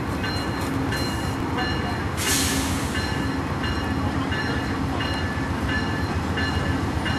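Amtrak diesel locomotives idling with a steady low rumble while a locomotive bell rings steadily, about one and a half strikes a second. A brief hiss sounds a little over two seconds in.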